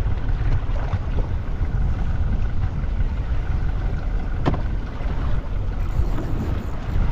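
Steady low rumble of wind on the microphone aboard a fishing boat at sea, with water and boat noise underneath. A single sharp click sounds about four and a half seconds in.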